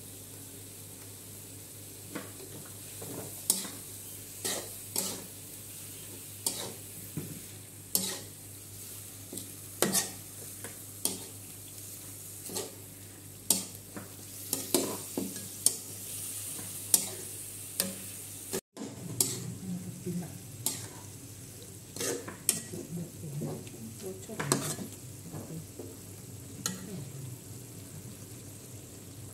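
Metal spatula scraping and knocking against a metal wok as pieces of beef are stir-fried, in irregular strokes over a steady sizzle of frying. The sound breaks off for a moment about two-thirds of the way through.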